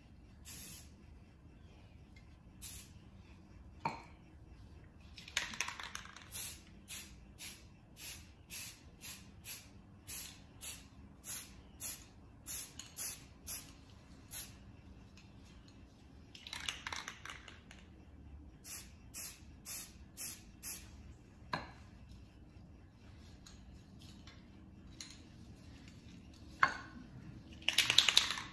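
Aerosol spray paint (Rust-Oleum camouflage spray) hissing from the can in a long run of short bursts, about two a second, with a few longer sprays; the loudest comes near the end.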